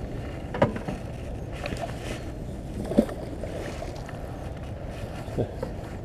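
Steady wind rumble on the microphone, broken by three short knocks: one about half a second in, a louder one about halfway through, and one near the end.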